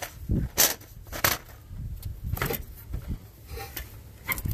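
A handful of separate sharp clicks and knocks from hands and hardware being handled around the fuel injector control module in a truck's engine bay.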